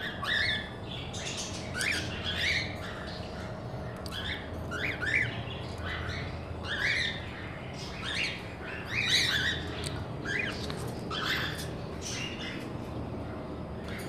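Cockatiels squawking: short, rising chirp-squawks repeated irregularly, about one or two a second.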